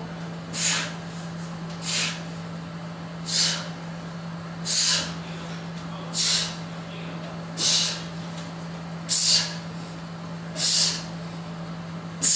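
A man breathing out hard through the mouth with each knee raise on a power tower's dip bars, one short, forceful exhale about every one and a half seconds, about nine in all. A steady low hum runs underneath.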